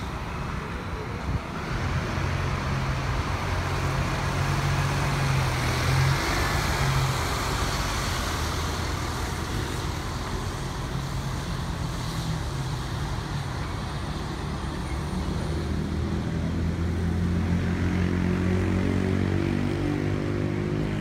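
Diesel city bus engines: a Volvo double-decker bus pulling away, its engine hum loudest over the first several seconds. Near the end another bus accelerates past, its engine note rising in pitch.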